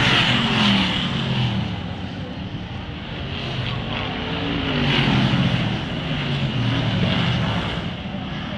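BriSCA Formula One stock cars' V8 engines racing past one after another, each car's engine note falling in pitch as it goes by. The loudest passes come right at the start and about halfway through.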